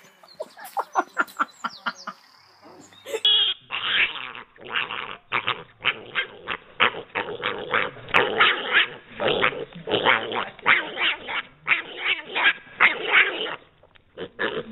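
Pet mini pig squealing and grunting in quick short bursts, two or three a second.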